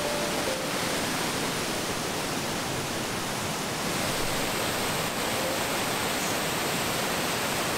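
Waterfall rushing: a steady, dense noise of falling water with no breaks.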